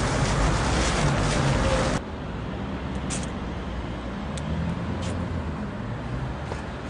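Outdoor urban ambience with a steady hiss of road traffic, louder for the first two seconds and then cutting to a quieter level, with a few faint clicks.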